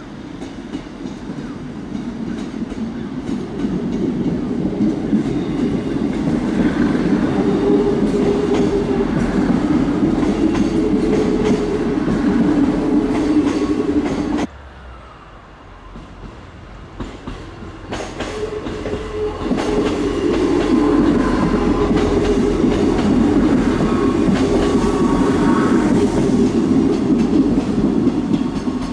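Class 158 two-car diesel multiple unit running past close by, a steady rumble of its diesel engines and wheels on the rails. The sound cuts off suddenly about halfway through, stays much lower for a few seconds, then builds back up as the unit is heard again.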